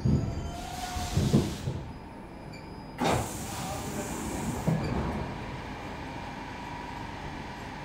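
Stockholm Metro C14 train standing at a platform: a thump at the start and a few low knocks, then a sudden hiss about three seconds in that lasts nearly two seconds. A steady whine runs on after it.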